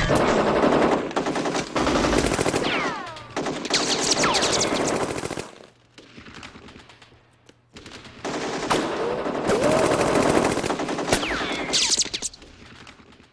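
Machine-gun fire from a movie shootout soundtrack: long stretches of rapid automatic fire, a lull of about three seconds in the middle, then another long burst. A few sliding high whines are mixed into the shooting.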